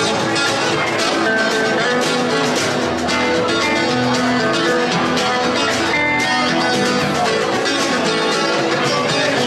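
Live band playing an instrumental passage of a rockabilly song: strummed and picked guitars over a drum kit, with no singing.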